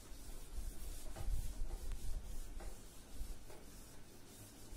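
A whiteboard duster rubbing marker writing off a whiteboard in a series of uneven wiping strokes.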